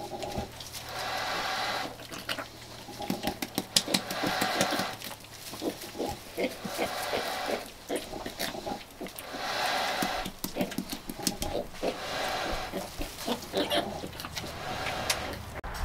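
Pigs at farrowing, a sow with newborn piglets, calling in repeated sounds of about a second each, with straw rustling and crackling between them.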